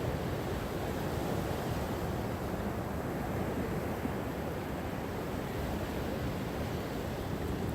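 Gentle sea waves washing ashore: a steady, low rushing with no distinct breaking crashes.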